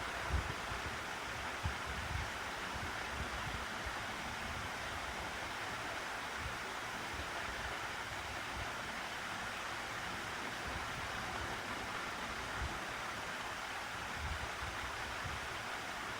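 Room fan running steadily: an even whoosh of moving air. The draught buffets the microphone now and then with soft low puffs, most often in the first couple of seconds.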